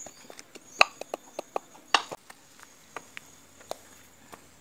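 Irregular clicks and light knocks of a knife against a small bowl as food is cut in it, the loudest about a second and two seconds in.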